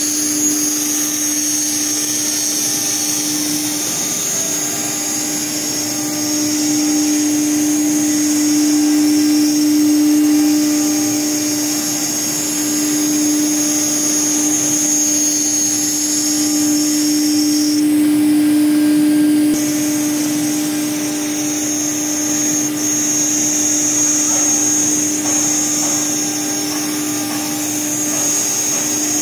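Blue Elephant 2131 ATC CNC router's spindle running at speed while its bit routes around letters in a board: a steady high whine over a lower hum, with the noise of the cut.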